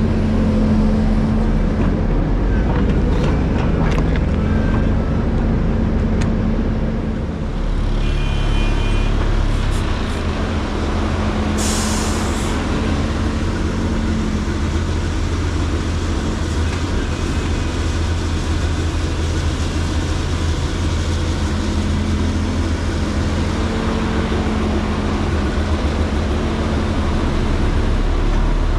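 Hydraulic excavator's diesel engine running steadily with a deep hum, with a short hiss about twelve seconds in.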